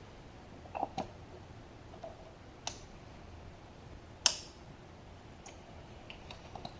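Scattered short, sharp clicks and light taps, the two loudest about two and a half and four seconds in, from spark plug leads being pulled off and pushed back onto a distributor cap, moved one position round the cap.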